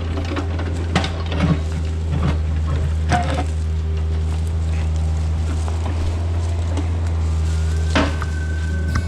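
Diesel engine of a heavy earthmoving machine running steadily under load, with a few scattered knocks and scrapes over the drone.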